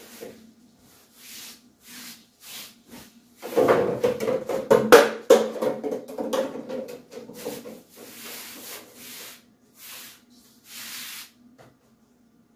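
Household things being handled and shifted on a table: repeated short rubbing and scraping strokes, with a louder stretch of clattering from about three and a half to seven and a half seconds in. A faint steady low hum runs underneath.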